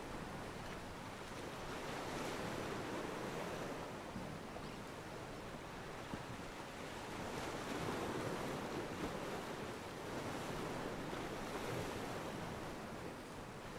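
Ocean waves washing against a pier, a stock water-ambience track: a steady wash that swells and eases every few seconds.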